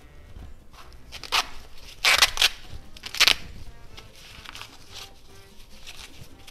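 A few sharp handling noises during kitchen prep: one about a second in, a loud pair about two seconds in, and one just after three seconds. Soft background music plays underneath.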